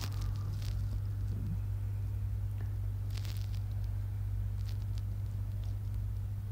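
A steady low electrical hum, with a few faint sharp computer-mouse clicks about halfway through and again a little later.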